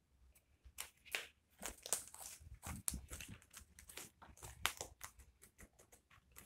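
Homemade slime being squished and stretched by hand, giving irregular small clicks and crackles.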